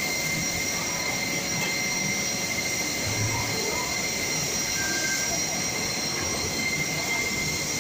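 Steady factory-floor machinery noise, an even hiss with a constant high-pitched whine running through it.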